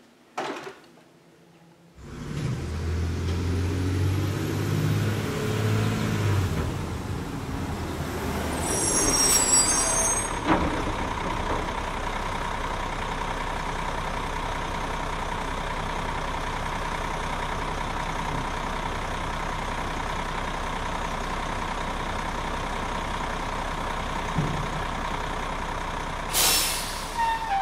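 Garbage truck running while it tips its load of trash, with a steady engine and machinery hum. A sharp hiss of air comes about nine seconds in and again near the end.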